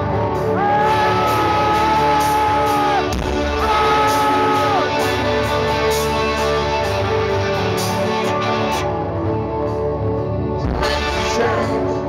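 Live rock band playing, heard from the audience: a held lead note bends up about half a second in and drops away near three seconds, then a second held note follows briefly around four seconds.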